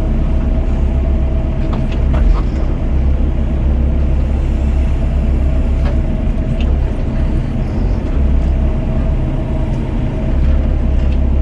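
Doosan DX55 mini excavator's diesel engine running steadily under working load, with a steady whine over the low hum and a few short clicks and knocks.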